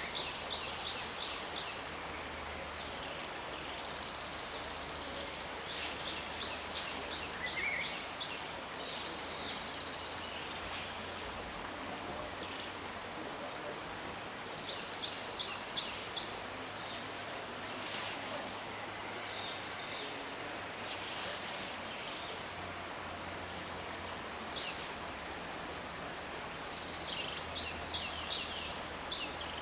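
Continuous high-pitched chorus of forest insects, with short runs of bird chirps breaking in several times and one brief rising bird call.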